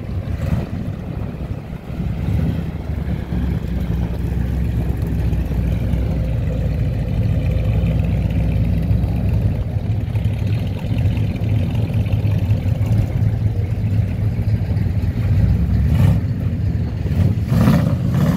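Engine of a 1972 Ford F100 pickup running at low speed as the truck drives slowly and pulls into a parking spot. There are two sharp knocks near the end.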